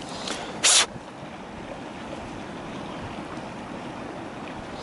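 Steady rush of flowing river water, with one short, sharp hiss a little under a second in.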